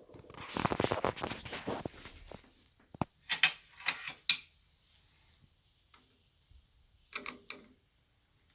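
Hands working on a water heater's thermostat: about two seconds of scraping and rubbing, then a scatter of light clicks and knocks, twice.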